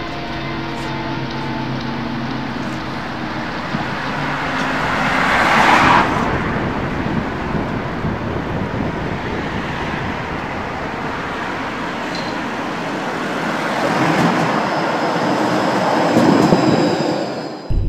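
Train running past a station platform: a loud rushing rumble that swells to a peak about six seconds in, eases, builds again near the end, then cuts off suddenly.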